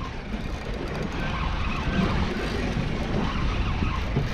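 Steady rumbling noise of wind on the microphone and water around a small boat at sea, with no distinct events standing out.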